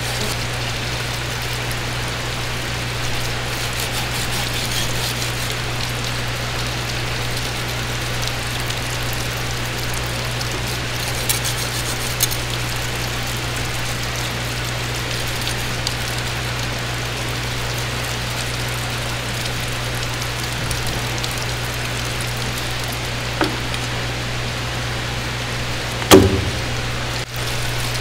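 Steady rush of running water over a constant low machine hum, with a few faint clicks and one sharp knock near the end.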